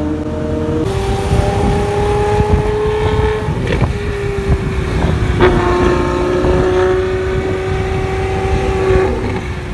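Ferrari 812 Superfast's V12 with a Novitec exhaust, running loud at a steady engine speed as the car cruises along. The note steps up about a second in, and there are two sharp cracks about four and five and a half seconds in.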